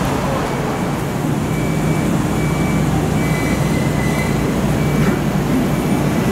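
Steady road traffic noise at a city intersection: a continuous rumble of passing and idling vehicles.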